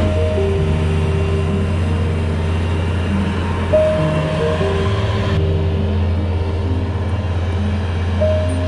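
Background music with a short melody that repeats about every four seconds, over a steady low engine drone.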